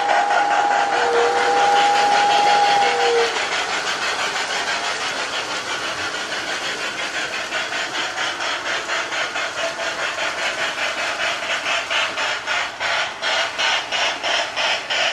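Toy steam locomotive's Sound of Power sound unit playing electronic steam chuffing through a small speaker in the tender, an even rhythmic chuff that is quieter in the middle and louder near the end. A two-note steam whistle sounds in the first three seconds: the end of one blast, then a longer second blast.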